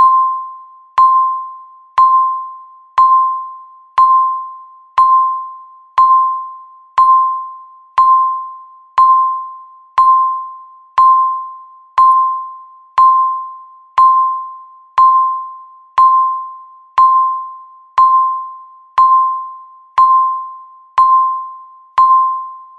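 Countdown timer beeps: a single mid-pitched electronic tone struck once every second, each beep sharp at the start and fading away like a chime, one for every second left on the timer. The beeps stop at the very end.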